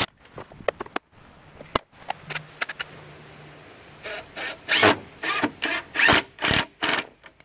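Assembling a wooden frame held in steel pipe clamps: clicks of handling and a faint low motor hum about two seconds in, then a run of about eight short rubbing, scraping strokes, roughly two a second, as the pipe clamps are worked along their pipes.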